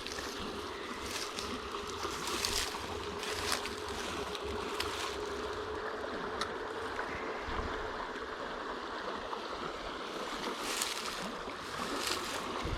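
Steady rush of flowing river water, with wind buffeting the microphone and a few light knocks.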